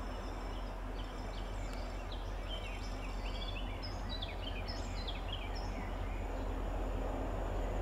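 Birds singing in many short chirps over a steady low rumble that grows a little louder near the end.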